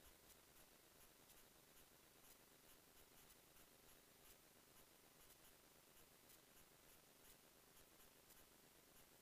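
Near silence: a faint steady hiss with faint, frequent ticks.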